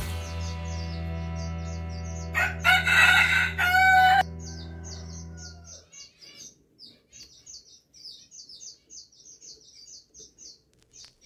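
Background music of held chords that fades out about six seconds in. A loud, pitched bird call lasting nearly two seconds comes about two and a half seconds in, and short high bird chirps repeat about three times a second throughout.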